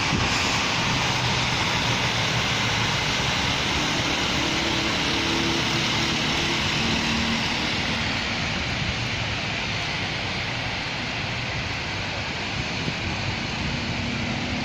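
Steady rain hiss with the low engine hum of passing traffic.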